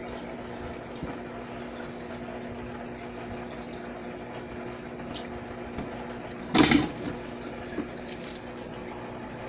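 Steady hum of a small water pump with running water. About six and a half seconds in comes one sudden loud clatter, lasting under half a second.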